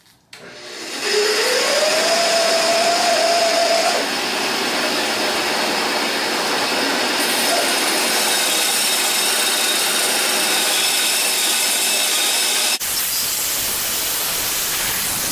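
Bandsaw starting up, its motor whine rising over the first few seconds, then the blade resawing a hard wenge block into handle scales with a steady, loud cutting noise. The sound shifts suddenly near the end and the cutting carries on.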